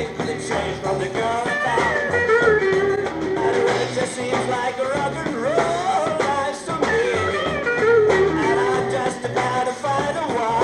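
Rock band playing live: a singer carries the tune over guitar and a steady drum beat.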